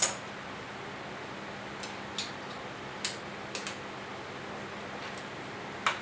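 Sharp light clicks and metallic taps, about six spread over several seconds, from hands working at a milling machine's vise and controls, over a faint steady hum.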